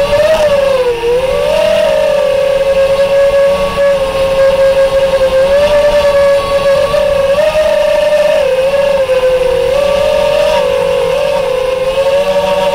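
FPV quadcopter's electric motors and propellers whining loudly, the pitch dipping and rising as the throttle changes, with a clear dip about a second in.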